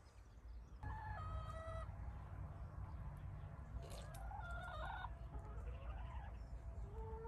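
A flock of domestic hens clucking and calling, with short pitched calls and a drawn-out rising call near the end, over a steady low rumble.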